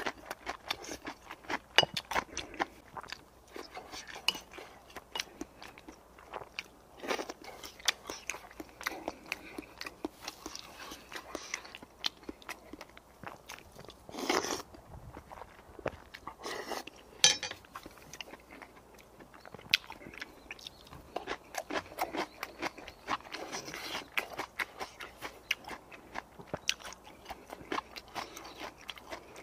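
Close-miked eating: a man chewing spoonfuls of rice and soup with many small wet smacks and clicks, and a few louder slurps from the spoon.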